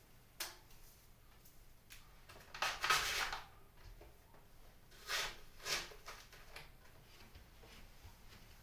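Dried pampas grass rustling in short bursts as stems are handled and pushed into a foam base, the loudest about three seconds in.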